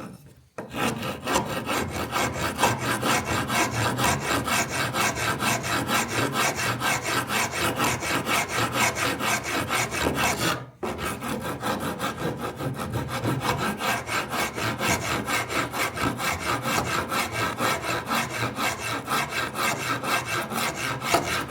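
Wood rasp filing wood in quick, even strokes, about four or five a second, with a brief pause just after the start and another about eleven seconds in.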